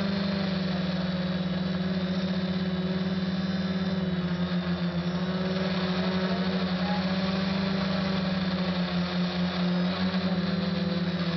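SK450 quadcopter's four motors and propellers humming steadily in flight, the pitch wavering slightly now and then.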